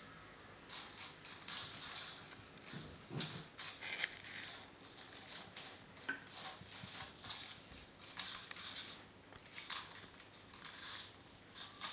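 Bengal kittens batting a flat cross-shaped plastic object across a hard floor, with paws on the floor. The plastic scrapes and skitters in quick, irregular bursts.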